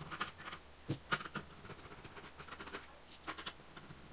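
Faint, irregular clicks and scrapes of a small screwdriver turning screws out of a laptop's plastic frame.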